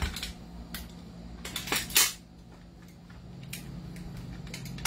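Gas-powered airsoft M4A1 carbine being worked and fired on single shot: a series of sharp mechanical clicks, with one louder shot about two seconds in.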